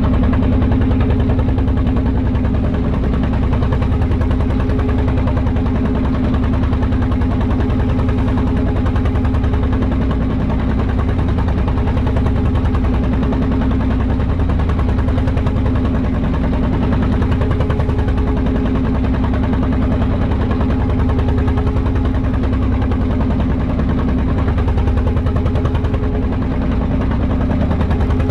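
Small wooden fishing boat's engine running steadily under way, a loud, even, rapid chugging with a steady hum.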